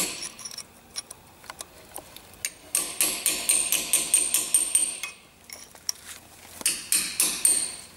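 Small hammer lightly tapping a punch against a Land Rover front hub's locknut and lock-washer tab. A few scattered metallic taps come first. About three seconds in there is a quick run of ringing taps, and a shorter run follows a second before the end.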